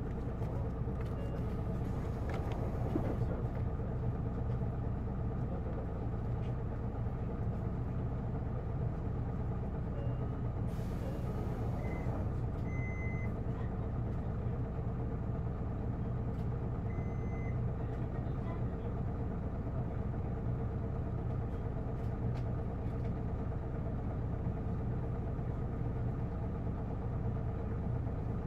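Cabin sound of an Isuzu PKG-LV234L2 city bus, its diesel engine running with a steady low hum. A short hiss comes about eleven seconds in, and a few brief high beeps sound shortly after it and again a few seconds later.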